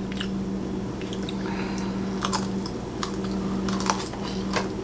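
A person chewing crispy deep-fried mandu (Korean dumplings) close to the microphone, with scattered small crunches and clicks. A steady low hum runs underneath.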